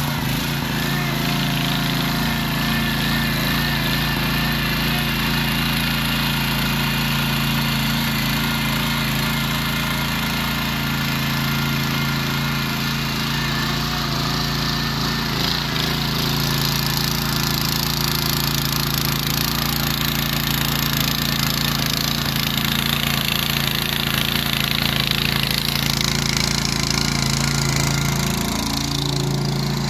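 Walk-behind tiller's 8.5-horsepower engine running under load as its tines churn garden soil, a steady engine note that briefly sags and picks up again near the end.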